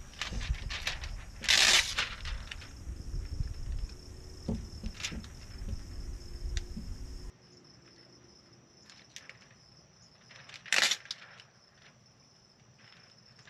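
A steady high insect drone runs under scattered rubbing, crinkling and tapping as wet window tint film is handled and smoothed against a truck's door glass. Two short hissing bursts come through, one about two seconds in and one near eleven seconds. Wind rumbles on the microphone until a cut about seven seconds in.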